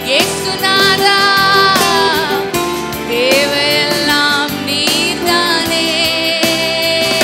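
A woman singing a Christian worship song into a microphone, with long held notes that waver in pitch, over steady instrumental backing.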